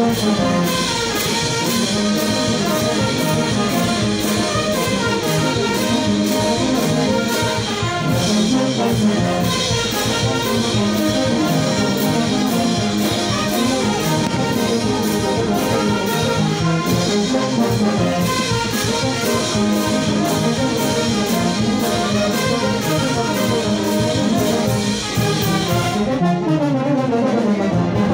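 Andean brass band of sousaphones, trumpets and trombones playing a chimaychi and huayno medley with a steady beat. Near the end the beat drops out briefly and a falling glide sounds.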